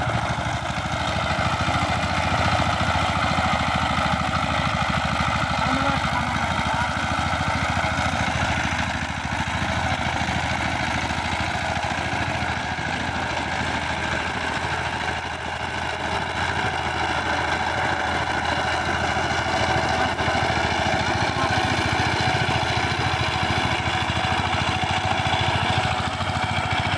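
Single-cylinder diesel engine of a walk-behind power tiller running steadily while the machine works through deep mud and water in a flooded paddy field.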